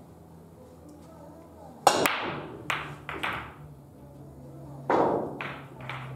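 Break shot in 9-ball: a sharp crack about two seconds in as the cue ball smashes into the racked balls, then scattered clacks of balls knocking together and off the cushions, with another cluster of knocks around five seconds in.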